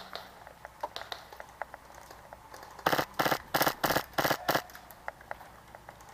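Polarstar HPA-powered airsoft DMR firing a quick string of about six shots, starting about three seconds in and spread over less than two seconds.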